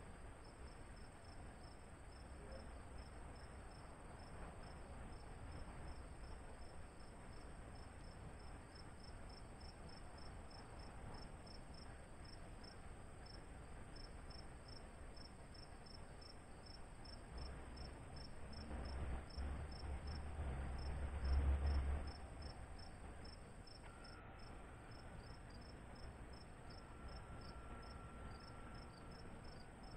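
Insects chirping in quick, even, high-pitched pulses, several a second, over a faint steady high hum. Near the end a low rumble swells up and then drops away suddenly.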